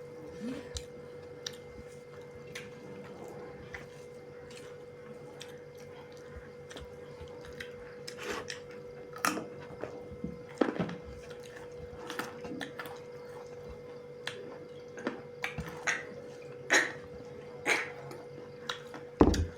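Close-miked eating sounds of pork and rice: chewing, mouth smacks and sharp little clicks, scattered at first and more frequent after about eight seconds, over a steady faint hum. A low thump comes just before the end.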